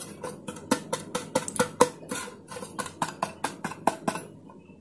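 Hand tapping a square metal cake pan while tilting it to spread flour over its greased inside: a quick, irregular run of light knocks, several a second, that stops about four seconds in.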